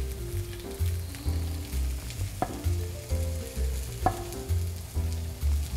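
Collard greens sizzling in a hot oiled pan, with a chef's knife cutting through tomato onto a wooden cutting board in a few sharp clicks, about two and a half and four seconds in. Background music with a steady bass line runs underneath.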